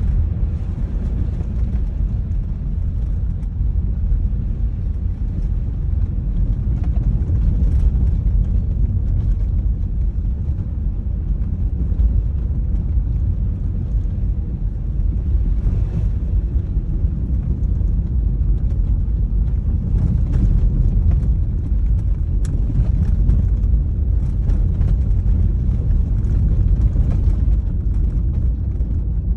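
A car running with a steady low rumble and scattered faint sharp knocks. The knocking appeared after the cardan (universal) joint was replaced, and is taken as a sign of a problem with the new joint.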